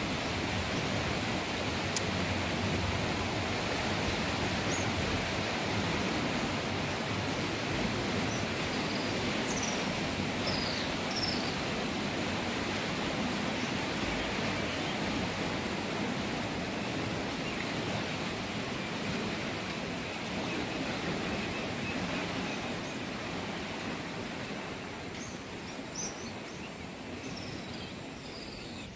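Steady rush of canal water flowing under a bridge, with a few faint bird chirps in the middle and again near the end.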